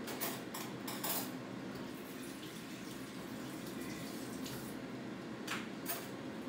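A few light clinks of eating utensils against dishes: a cluster in the first second or so and two more near the end, over a steady low background hum.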